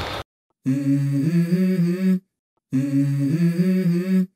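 A short pitched vocal phrase, stepping up in pitch, played twice with a gap of dead silence between. It is an edited-in sound effect over the before/after comparison.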